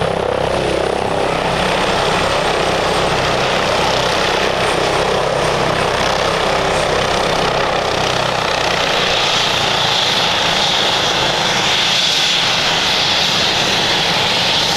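Airbus BK 117 D3 (H145) helicopter running on the ground after landing, with its twin turboshaft engines and main rotor turning: a loud, steady rotor and turbine noise. A thin high turbine whine falls slightly in pitch over the first half, and a higher hissing whine grows stronger in the second half.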